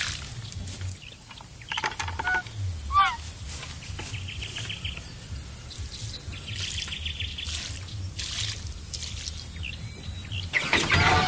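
Water pouring and trickling out of a tipped plastic bucket onto grass and soil, with short bird chirps and a couple of sliding calls over it. Chickens start clucking near the end.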